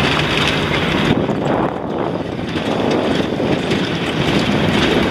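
Wind rushing over the microphone together with the running and road noise of a pickup truck going slowly over a rough dirt road.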